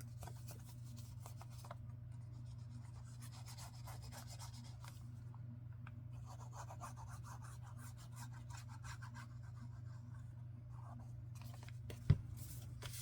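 Glue being rubbed onto paper in short scratchy strokes, over a steady low electrical hum, with one sharp tap near the end.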